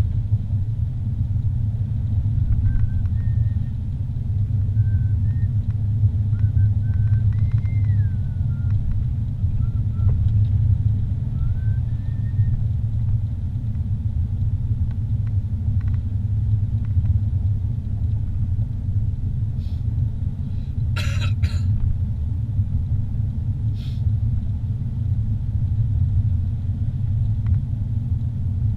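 Steady low rumble of a vehicle driving on a paved road, heard from inside the cabin. A few faint, short high chirps come through in the first half, and a few brief clicks about three-quarters of the way through.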